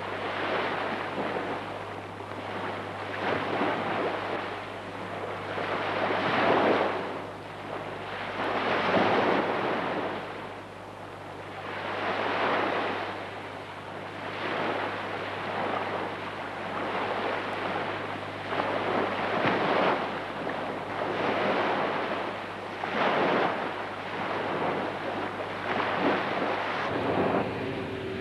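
Surf washing onto a shore, a swell of noise building and falling away every two to three seconds, over a steady low hum that stops near the end.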